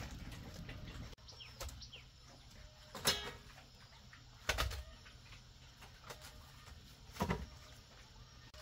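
Chickens clucking: a few short, separate calls, the loudest about three, four and a half and seven seconds in. A low rumble in the first second cuts off abruptly.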